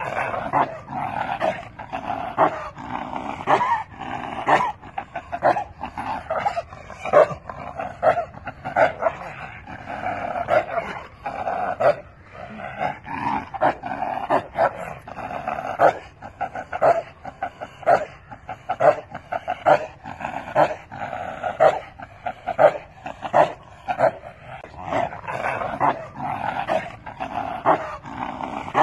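A chained Bakerwali dog barking over and over, about one to two barks a second without a pause.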